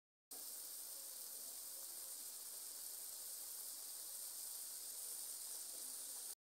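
Scrambled egg and chopped tomato sizzling in a frying pan, a steady high hiss that cuts off abruptly near the end.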